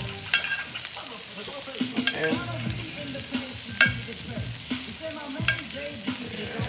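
Blackened salmon and shrimp sizzling in a hot cast-iron grill pan, with a metal utensil clicking sharply against the pan about four times as the pieces are lifted and turned.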